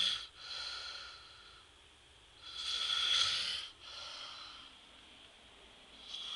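A man snoring heavily: loud rasping snores about three seconds apart, each followed by a softer breath.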